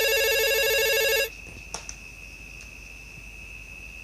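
Telephone ringing, a fast warbling trill that cuts off about a second in, over a faint steady high-pitched whine.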